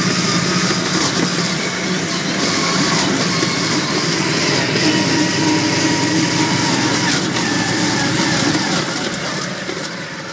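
Argo six-wheeled amphibious vehicle's engine running steadily under way, getting quieter near the end.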